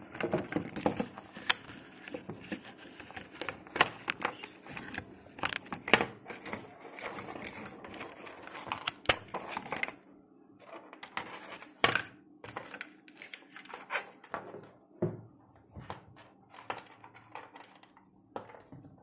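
Hands handling an earphone box and its plastic packaging: crinkling and rustling with many quick clicks and taps. About halfway through it thins out to scattered clicks.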